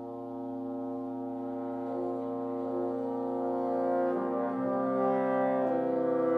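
Oboe with flute, clarinet, horn and bassoon playing slow, sustained chords that swell steadily louder, the held notes shifting about four seconds in and again near six seconds.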